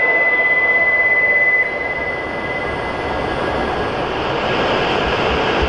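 A steady, high electronic tone from the platform's departure buzzer cuts off about a second and a half in. Then the noise of a Hokuriku Shinkansen train grows as it starts to pull out of the station.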